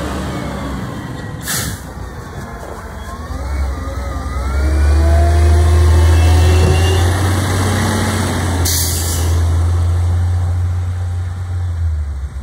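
Diesel engines of garbage trucks running on the street, with the low drone swelling loudest in the middle as a truck comes close and its pitch gliding up and down. A short air-brake hiss comes about a second and a half in and a longer one about nine seconds in.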